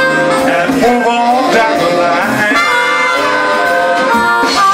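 Live big band music: the band playing a blues number between sung lines.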